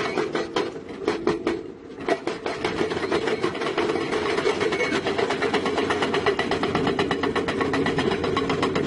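Diesel engine of heavy construction machinery running steadily under load, with a rapid, even clatter of about ten beats a second. The sound dips briefly about two seconds in.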